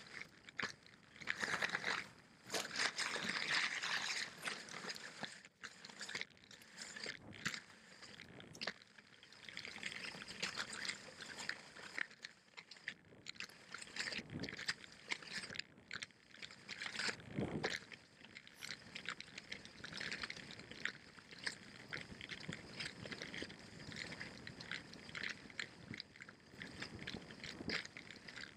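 Salomon skis running downhill over packed, uneven snow: a continuous hiss of the bases with crunching scrapes of the edges, loudest about two to four seconds in.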